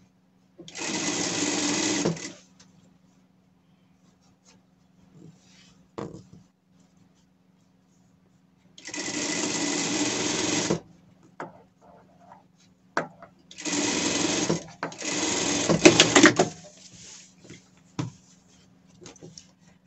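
Industrial straight-stitch sewing machine running in four short bursts of stitching, each one to two seconds long, sewing a zipper onto fabric. Between the bursts there is a low steady hum and a few light clicks.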